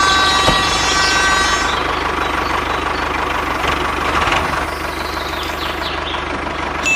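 Tractor engine idling steadily with a regular low knocking pulse, just after starting.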